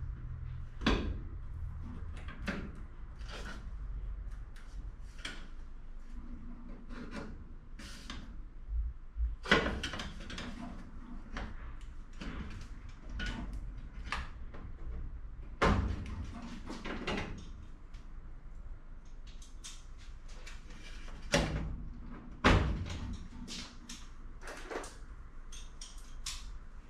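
Aluminium bulkhead and fuselage sheet-metal parts knocking and clunking as they are handled and trial-fitted, in irregular scattered knocks with light scraping between them. A few sharper knocks come about ten, sixteen and twenty-two seconds in.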